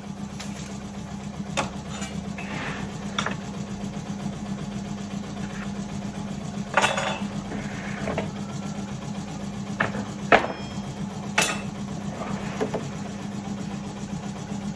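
A machine motor hums steadily, with several sharp knocks of wooden boards being handled and set down on the bench.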